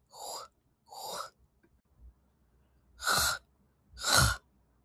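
A woman's voice saying an isolated voiceless consonant sound again and again, each a short breathy hiss: two soft ones in the first second or so, then two louder ones about three and four seconds in.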